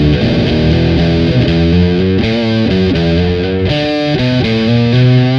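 Electric guitar, a Fender Jazzmaster on its bridge pickup in C standard, played through a Nux DS-3 Classic Distortion pedal. It plays a distorted single-note riff, the notes changing several times a second, and ends on a held low note.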